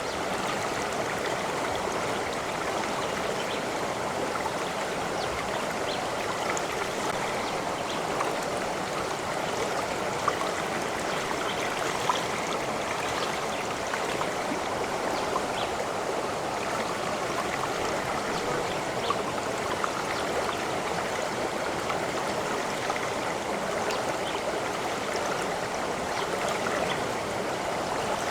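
Running water of a stream, flowing steadily with small splashes and drips now and then.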